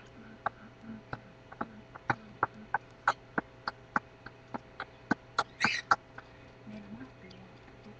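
A steady beat of sharp clicks, about three a second, with a short hissing burst near the end, kept as a rhythm for a rap.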